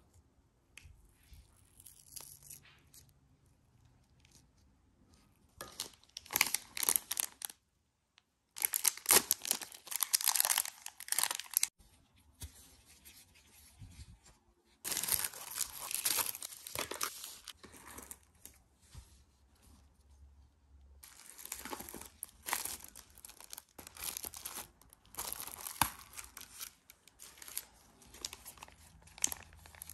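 Clear plastic packaging and disposable plastic gloves crinkling and rustling as items are unwrapped, in several bursts of a few seconds each with quieter handling between.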